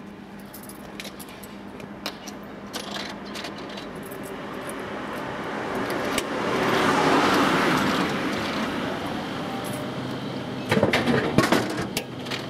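A car passing along the street, its noise swelling to a peak about halfway through and then fading away. A few sharp clicks come near the end.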